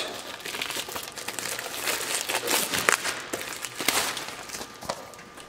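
Clear plastic wrapping crinkling and rustling in the hands as a new rubber inner tube is unwrapped from it, dying away near the end.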